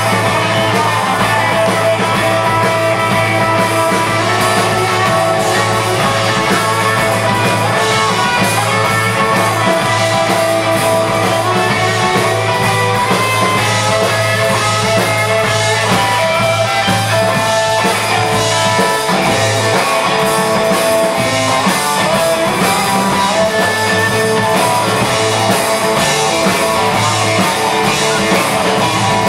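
Live rockabilly band playing loudly: electric guitar and electric bass guitar over a drum kit. The low bass drops out for a few seconds about two-thirds through, then comes back in.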